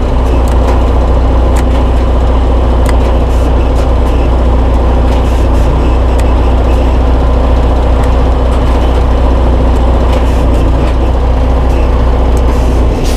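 Heavy-truck diesel engine of a 2016 Freightliner Cascadia idling steadily, with a few faint clicks from the cab.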